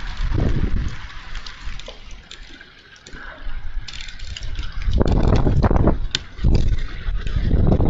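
Gusting wind buffeting the microphone, with sharp ticks of rain and hail hitting throughout. The gusts ease off about two seconds in and come back strongly from about five seconds in.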